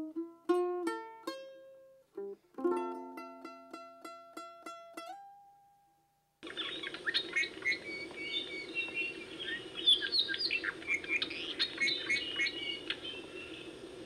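Plucked string music ending on a held note about five seconds in. After a brief pause, a forest soundscape of many birds chirping and calling over a steady background hiss.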